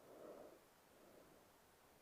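Faint breathing of a sleeping woman: a soft exhale just after the start and a weaker one about a second in, over a low steady hiss.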